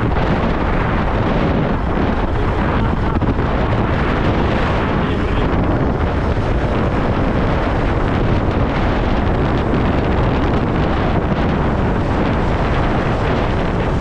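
Wind buffeting the microphone: a loud, steady rumbling rush with no separate events.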